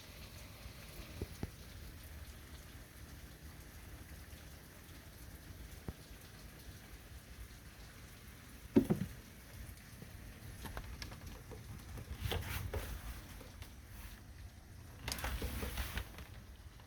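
Steady light rain patter, with one sharp knock about halfway through, a few softer clicks after it, and a brief rustle near the end.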